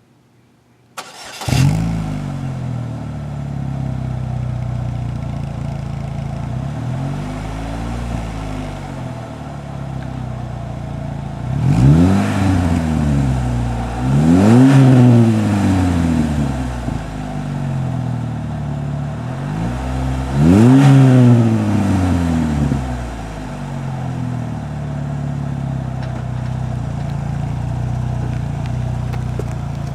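Chevy HHR's four-cylinder engine starting about a second in and idling through a new Borla performance exhaust system, with three short throttle revs, each rising and falling back to idle.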